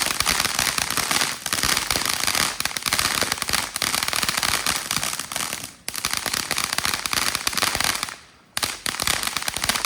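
Ground firework crackling: a dense, rapid run of small sharp pops with a brief lull near six seconds and a short gap a little after eight seconds, dying out at the very end.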